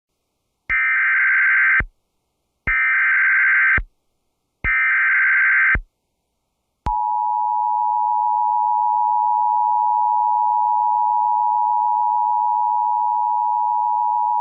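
NOAA Weather Radio Emergency Alert System signal: three one-second bursts of buzzing SAME header data tones, then, about seven seconds in, the long steady single-pitched warning alarm tone. It marks the start of a broadcast severe thunderstorm warning.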